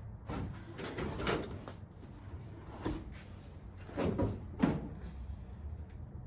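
About half a dozen short metallic clicks and scrapes of an Allen wrench turning a set screw to tighten a spotlight's locking collar.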